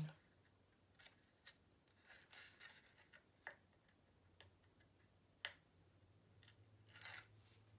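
Very quiet handling of a folded paper craft: scattered small clicks and rustles as fingers peel the liner off double-sided tape strips and press the paper sides together, with one sharper tick about five and a half seconds in.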